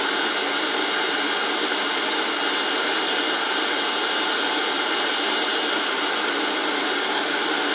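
A forge running with a steady, unbroken rushing noise as the metal heats in the fire.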